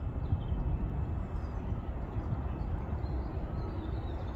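Low, uneven outdoor rumble with faint bird chirps above it.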